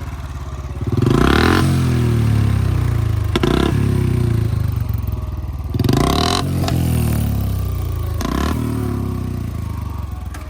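Motorcycle engine being revved with the throttle in three surges that rise and fall back to idle, with a couple of short sharp cracks in between.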